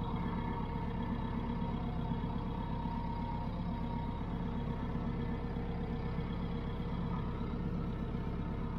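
Farm vehicle's engine running at a steady, unchanging speed as it is driven slowly across a pasture.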